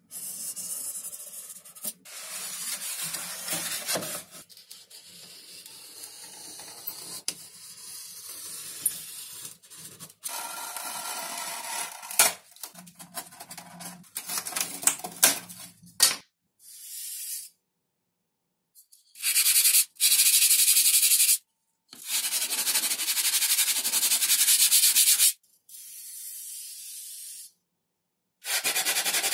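Sanding and rubbing on foam model parts, heard as a series of short scraping clips separated by sudden silent gaps. In the second half there are longer, louder stretches of steady hiss.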